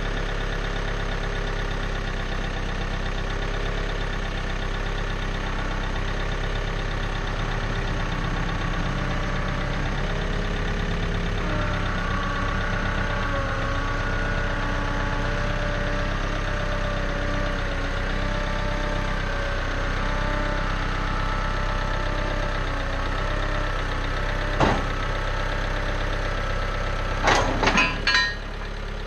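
John Deere 110 backhoe's diesel engine running steadily. About twelve seconds in its note rises and wavers, as if under working load. There is one sharp knock about 25 seconds in, and a quick run of knocks near the end.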